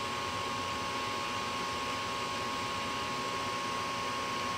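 Gas furnace draft inducer motor running steadily, a constant hum with a high whine in it. It runs on while the pressure switch fails to close, the fault that the control board flags with three blinks.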